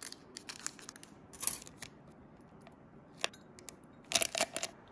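Scissors snipping through a plastic sachet in a few short, crisp cuts spread over several seconds, with a cluster of snips about a second and a half in and another near the end.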